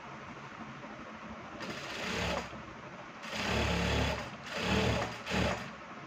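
Industrial lockstitch sewing machine stitching fabric in four short runs starting and stopping, the first about one and a half seconds in and the longest about a second.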